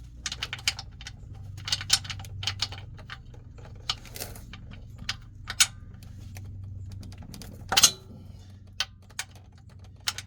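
Irregular metallic clicks and clinks of a wrench being worked on the 17 mm oil-pan drain plug of a BMW 325i to loosen it, with one louder clink near the end.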